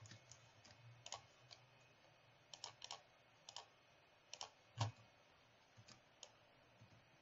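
Faint, scattered clicks of a computer mouse and keyboard, about a dozen, several in quick pairs like double-clicks, with the sharpest a little before the five-second mark.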